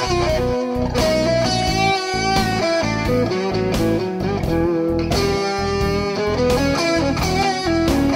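Electric guitar playing a blues turnaround in E, packed with half- and whole-step string bends and vibrato, over a steady low backing with a regular beat.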